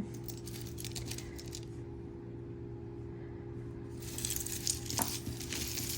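Small metal jewelry pieces, earrings and trinkets, clinking and rattling as they are picked through by hand. A few light clicks come first, then a busier run of clinks in the last two seconds with one sharper click.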